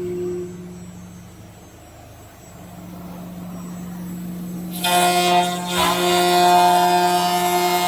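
Spindle of a 5-axis CNC router running with a steady hum. About five seconds in, the bit bites into the workpiece and a much louder cutting sound takes over: a high, multi-pitched whine over rasping noise.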